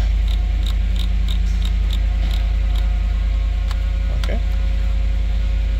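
A row of short clicks, about three a second for the first two and a half seconds and a few more later, as the 2015 GMC Yukon's climate-control temperature dial is turned up to full heat. Under them runs the steady low hum of the idling engine.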